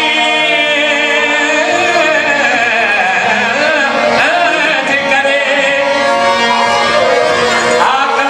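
Rajasthani folk song: a man's voice sings long, ornamented notes that waver and glide, over a steady drone from the accompanying instruments.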